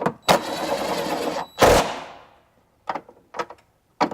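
Power window motor whirring for about a second as it drives the freshly refitted door glass, which stops with a loud thud. There are light clicks before and after.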